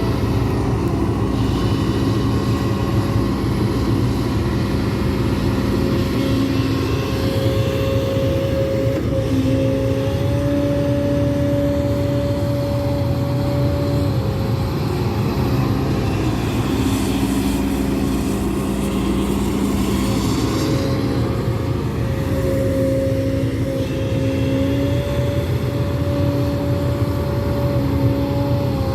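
Hidromek 200W wheeled excavator working: a steady diesel engine drone with whining tones that step up and down in pitch every few seconds as the machine works.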